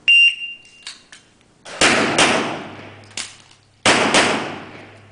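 A shot timer's start beep, then Glock 17 9 mm pistol fire: a quick pair of shots about two seconds in, a short clack during the reload, and a second quick pair about four seconds in. Each shot echoes through the enclosed range.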